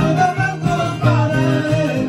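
Live folk music: a strummed acoustic guitar and a cajón, with a man singing.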